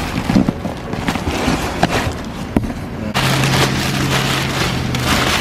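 Plastic bagging and crumpled packing paper rustling and crinkling as they are pulled out of a cardboard box by hand, with sharp crackles. A low steady hum comes in about three seconds in, when the rustling also gets louder.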